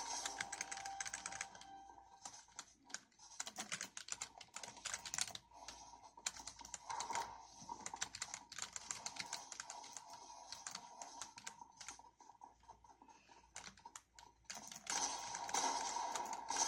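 Typing on a GEODAMER 65% mechanical keyboard: a fast, irregular run of key clicks that thins out briefly twice.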